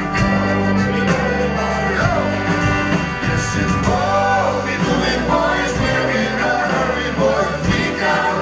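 Live band playing a sea shanty: a man singing the lead over strummed acoustic guitar and drums.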